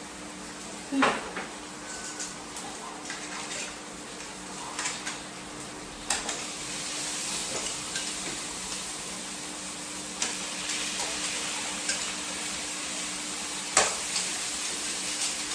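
Crab pieces and shrimp frying in a pan of sautéed garlic and butter, the sizzle growing louder from about halfway, with sharp clanks of utensils and pan, the loudest about a second in.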